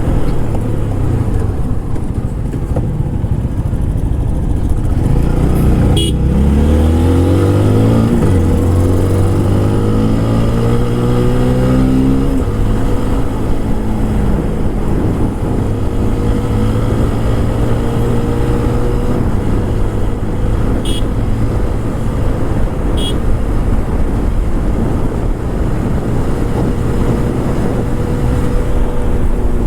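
TVS Apache RTR 160 4V's single-cylinder engine on its stock exhaust, revving up through two gears with a drop in pitch at each shift in the first half, then running at a steady cruising speed.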